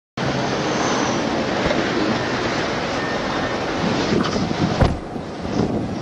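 Steady rushing vehicle and wind noise of a moving patrol car, picked up by its dashcam microphone. A single sharp knock comes a little before five seconds in, after which the noise drops somewhat.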